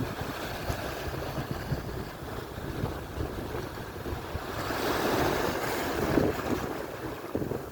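Atlantic surf washing onto the shore, swelling louder about two-thirds of the way through as a wave breaks, with wind buffeting the microphone underneath.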